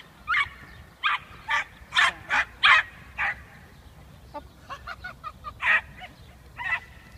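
Small dachshunds yapping excitedly in short high-pitched barks, a quick run of loud yaps at first, then fainter and further apart.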